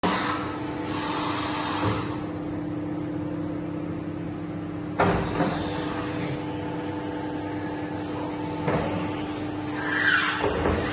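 Herber 90 CNC pipe bending machine running with a steady hum, with sharp clunks about five seconds in and again near nine seconds. Near the end a louder rush with several clunks comes as its bending arm swings.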